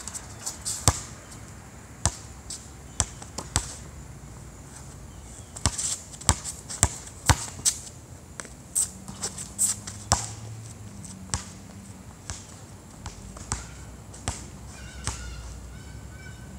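A basketball bouncing on a hard outdoor court: a string of sharp, irregular bounces, coming quickest, about three a second, around six to eight seconds in.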